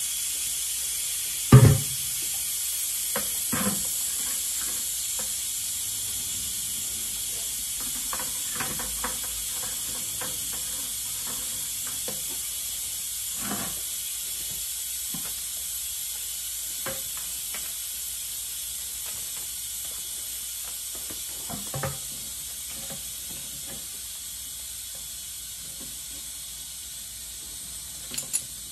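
Steady hiss of air escaping from a tractor's rear tire through the open valve stem with its core removed, slowly fading as the tire deflates. A sharp knock about one and a half seconds in, and a few lighter clunks later on.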